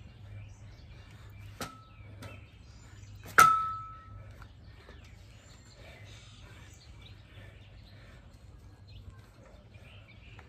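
Steel pull-up tower struck twice as a child climbs on it, two metallic clangs about two seconds apart. The second is much louder and rings on briefly with a steady tone.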